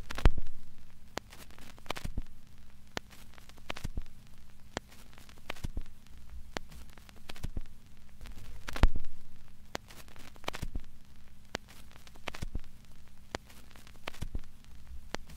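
Irregular clicks and pops, one to three a second, over a faint steady hum. The loudest clicks come right at the start and again about nine seconds in.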